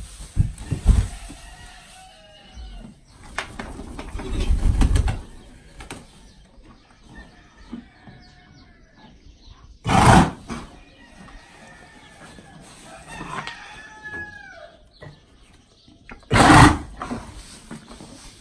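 A horse snorts loudly twice, about six seconds apart, and stirs its wood-shavings bedding with a low rustle as it gets up and moves. Chickens cluck and call faintly in the background.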